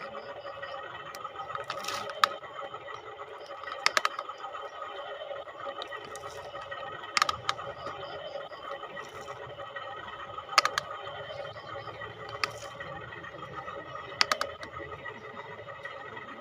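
Small electric motors of radio-controlled toy construction vehicles running with a steady whine, with sharp clicks or knocks every few seconds.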